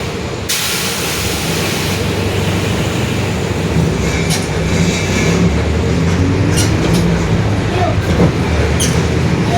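Mercedes-Benz OF-1721 Bluetec 5 bus heard from inside, its diesel running and gradually getting louder as it picks up speed, with a hiss coming in about half a second in and a few sharp rattles. The bus's differential is known to growl.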